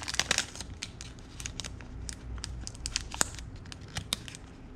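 Packaging being crinkled and torn open by hand. A quick flurry of sharp crackles comes first, then scattered crinkles and clicks.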